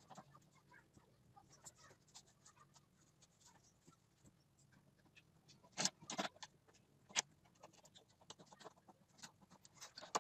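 Hand-tool work on a wooden nest box being fastened in place: faint scratching and small ticks, then a few sharp knocks close together about six seconds in and another about a second later.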